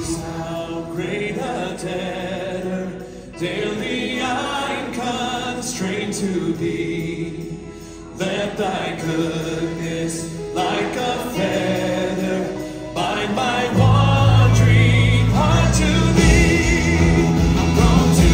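Live church worship band playing: singing over guitar and sustained chords. About fourteen seconds in, deep bass notes come in and the music gets louder.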